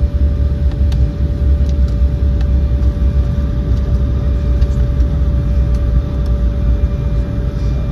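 Cabin noise of an Embraer 190 jet rolling along the runway after landing: a steady low rumble from its GE CF34 turbofan engines and wheels, with a constant whine and a few faint ticks of cabin rattle.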